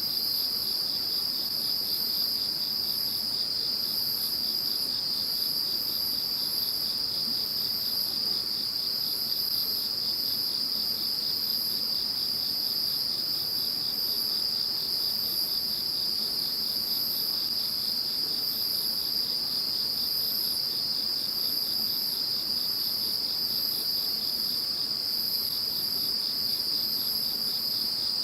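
Chorus of singing insects: one steady, unbroken high trill, with other insects chirping higher and more irregularly over it.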